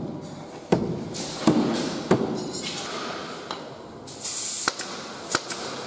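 Several sharp knocks and clacks of carpentry work on plywood panels, irregularly spaced, with a short burst of hiss about four seconds in.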